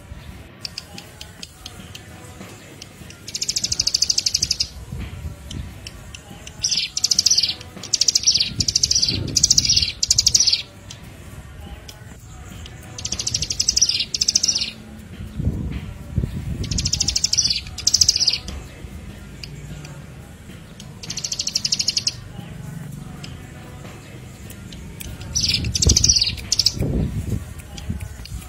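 Small songbird, of the prinia or fantail kind, giving high, rapid trilling chirps in bursts of a second or two, repeated every few seconds over a low background hum. It is a lure recording for attracting and tutoring wild songbirds.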